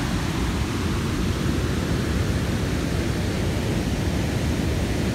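Steady rushing roar of a nearby waterfall: dense, unbroken water noise with a heavy low rumble.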